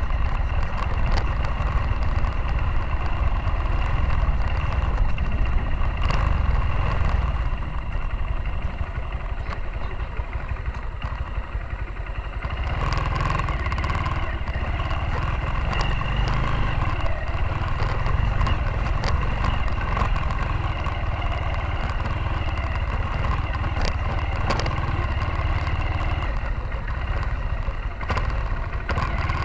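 Motorcycle engine running as the bike rides a rough, rutted dirt road, picked up by a camera mounted on the bike, with frequent knocks and rattles as it goes over bumps. The engine eases off for a few seconds and then picks up again about halfway through.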